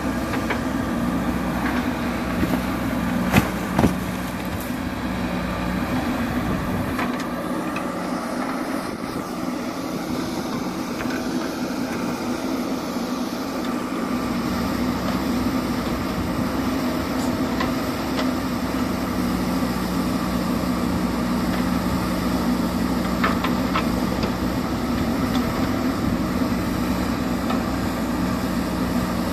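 JCB backhoe loader's diesel engine running steadily under work, with a few sharp knocks about three and four seconds in and again near the end.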